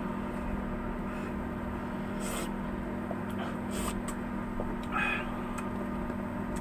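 An induction cooktop humming steadily at a low pitch, with a few brief scrapes and knocks of a wooden spoon stirring soup in a stainless steel pot.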